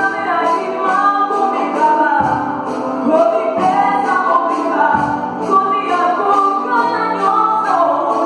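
Live gospel worship music: a woman sings the lead of a Lingala worship song over keyboard accompaniment, with a steady percussion tick about four times a second.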